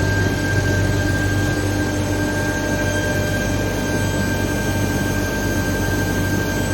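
High-temperature carbonization furnace equipment running: a steady industrial hum with a constant high-pitched whine over it, unchanging throughout.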